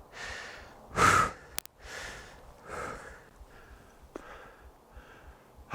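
A man breathing hard and heavily from the effort of chopping with an axe, a run of deep breaths with the loudest about a second in. A short sharp click comes just after that breath.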